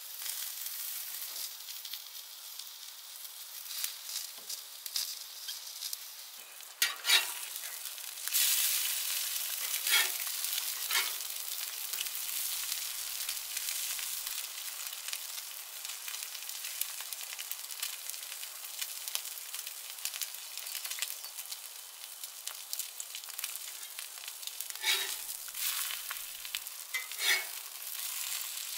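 Eggs, sausages and bread frying on a flat-top griddle: a steady sizzle that grows louder about eight seconds in, with a few short knocks mixed in.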